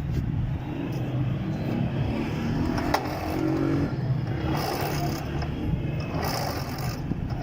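1986 Vespa 125 scooter's two-stroke single-cylinder engine running steadily at idle, with a single sharp click about three seconds in.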